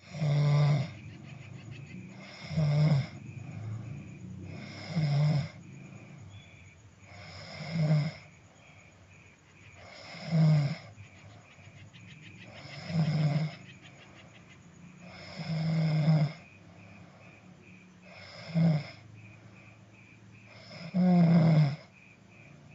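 A person snoring heavily and steadily: about nine loud rasping snores, one roughly every two and a half seconds, with quieter breathing between them.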